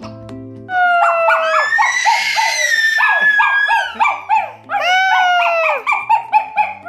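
Small white spitz-type dog howling, starting about a second in: long, wavering, gliding howls broken by runs of short repeated notes at about three a second.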